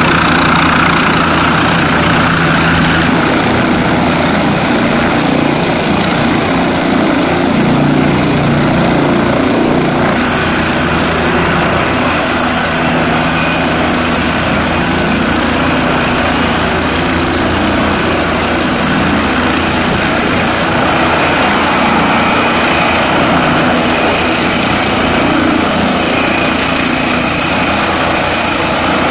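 Leonardo AW169 twin-turbine helicopter landing: loud, steady rotor and turbine noise as it comes down onto the pad, then running on the ground with the rotors still turning. A thin high whine drops out about ten seconds in.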